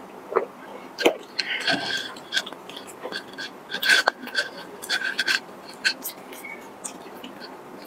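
Mouth sounds of eating a cornmeal steamed bun (mantou): bites and chewing with a run of sharp clicks and smacks, thinning out in the last couple of seconds.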